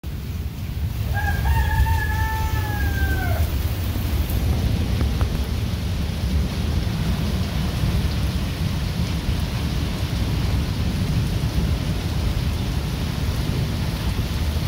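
Heavy rain pouring onto paved ground: a steady loud hiss with a low rumble underneath. About a second in, a rooster crows once, a single call of about two seconds that drops in pitch at the end.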